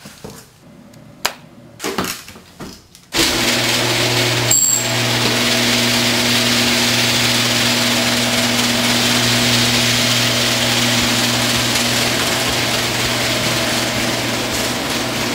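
A few knocks and handling bumps, then about three seconds in an electric garage door opener starts. Its motor runs with a steady hum while it raises a sectional garage door, with a click shortly after it starts.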